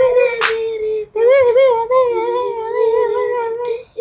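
A hummed montage tune: long held notes with a wavering pitch, broken by a short pause about a second in, with a brief hiss about half a second in.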